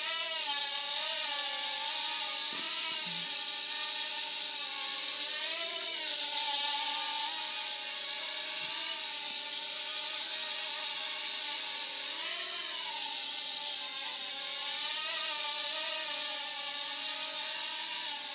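Toy remote-control helicopter in flight: its motor and rotors keep up a steady buzzing whine whose pitch wavers up and down.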